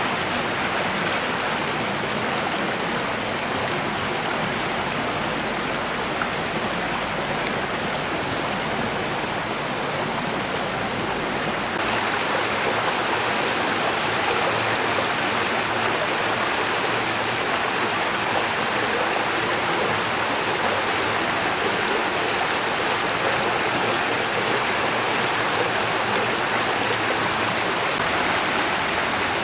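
Shallow stream of a park water-play channel running steadily, a continuous rush of flowing water that becomes a little louder about twelve seconds in.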